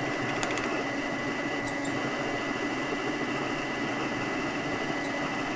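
Mini mill spindle turning slowly with a drill bit cutting down through a metal plate: a steady whine from the mill over the even noise of the cut.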